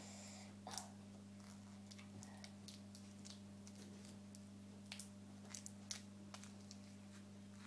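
Near silence: a steady low hum, with a few faint small clicks and rustles as hands fiddle with something near the microphone.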